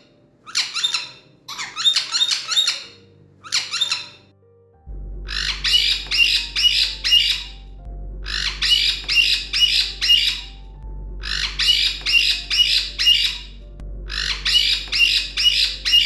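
White-bellied caique parrot giving rapid, harsh squawks in bursts. First come short 'requesting' calls, asking to be taken out or given a shower. From about five seconds in come longer 'stubborn' bursts of five or six squawks about every three seconds, demanding that the cage be opened, that it be taken out, or a treat.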